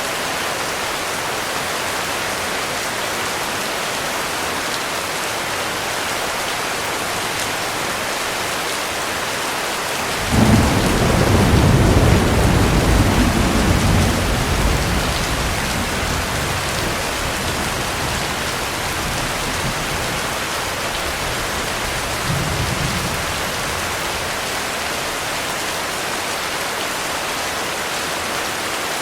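Steady heavy rain, with a clap of thunder about ten seconds in: a sudden deep rumble that swells for a few seconds and then dies away. A fainter rumble follows near the end.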